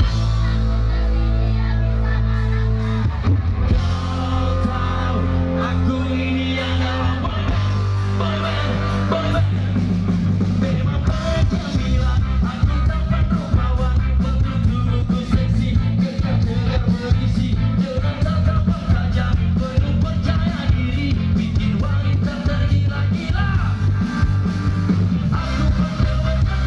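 Live band playing loud through a PA system, with a singer. It opens on long held low notes, and from about ten seconds in a busy drumbeat drives the song.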